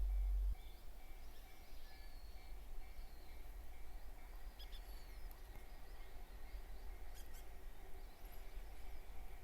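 Quiet outdoor ambience: a few faint bird chirps over a steady low rumble, which is louder for the first half second.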